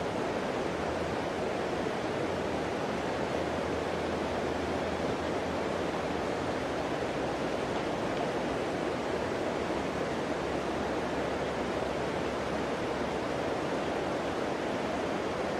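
Steady rush of flowing river water, an even noise with no breaks or distinct events.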